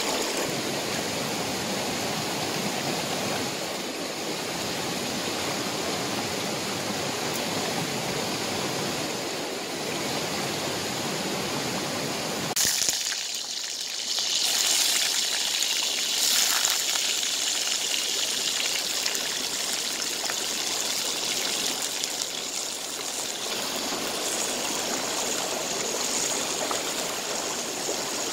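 Stream water running steadily, an even rushing noise. About twelve and a half seconds in the sound changes abruptly: the deeper part drops away and a brighter, hissier rush takes over.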